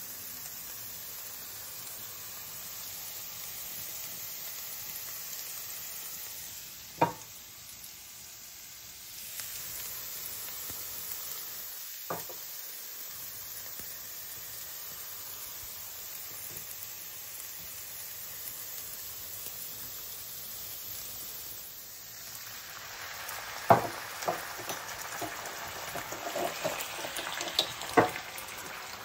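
Diced bell peppers frying in oil in a pan, a steady sizzle. A few sharp knocks break through, one at about seven seconds and one at about twelve, then a run of knocks and clinks near the end.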